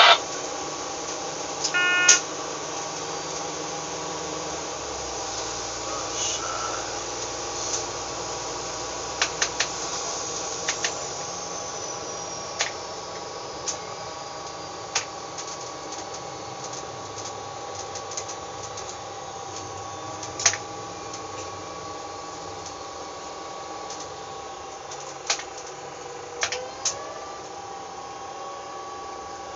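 Diesel railcar running along the line, heard from inside: a steady drone with a few faint whining tones, slowly getting quieter, broken by scattered sharp clicks and a short tone about two seconds in.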